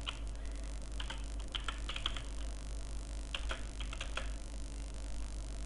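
Computer keyboard typing: scattered keystrokes in short, irregular clusters, over a low steady hum.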